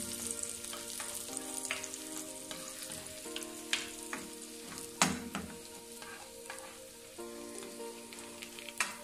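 Cashew nuts and raisins frying in ghee in a nonstick pan: a steady sizzle, with a spoon stirring through them and a few sharp knocks against the pan, the loudest about five seconds in.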